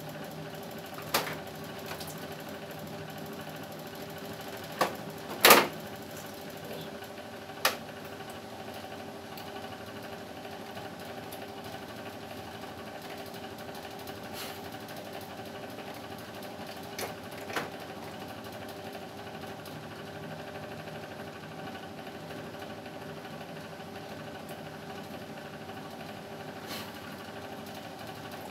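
Split-type air conditioner's indoor unit running on a test start with a steady hum, after a broken part was covered to stop its water leak. A few sharp plastic clicks and snaps come from the front panel and louvre being handled, the loudest about five and a half seconds in.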